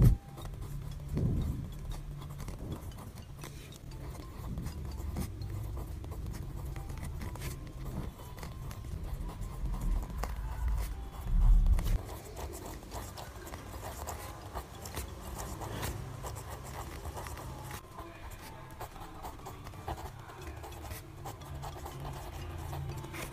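A pen scratching and rubbing across paper as cursive letters are written, with a few low bumps from the hand or paper, the loudest near the start and around the middle.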